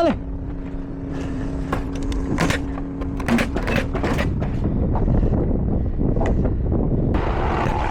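Wind rumbling on the microphone during wall framing, with scattered knocks and clicks of work on the structure. A steady hum runs for the first three seconds, and a brighter hiss comes in near the end.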